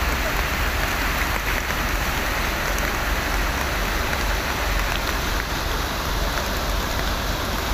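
Heavy rain pouring down in a steady hiss, with a low rumble underneath.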